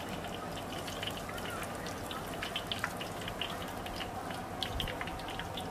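Hot oil sizzling in a wok as blocks of black tofu deep-fry, with many irregular sharp crackles and pops over a steady hiss.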